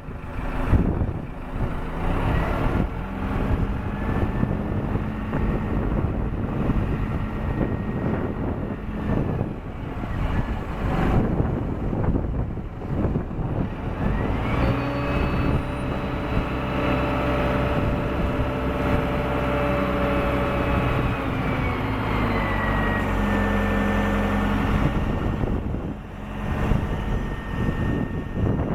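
1999 SkyTrak 10054 telehandler's diesel engine running under load. About halfway through it revs up and holds for several seconds, then drops back. A thin high whine rises and falls with the engine speed.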